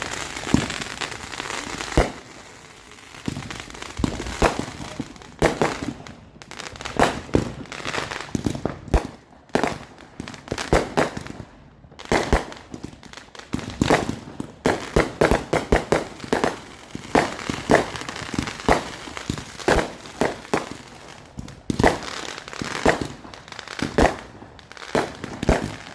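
Consumer fireworks going off: a rapid string of sharp bangs and crackling reports, with a brief lull a couple of seconds in before the bangs come thick and fast.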